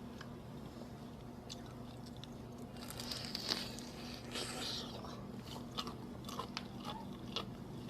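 Close-miked biting and chewing of crispy flour-coated fried chicken. A crunchy bite comes about three seconds in and another around four and a half seconds, followed by scattered crackly crunches while chewing.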